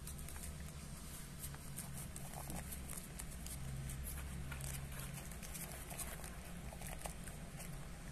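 Two cats eating dry kibble from a tray: many small, quick, irregular crunches and clicks of chewing, over a steady low hum.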